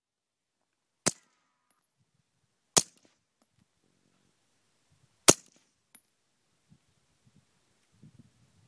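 Suppressed Beretta pistol fired three times, one sharp shot each, the first two about a second and a half apart and the third, loudest, about two and a half seconds later.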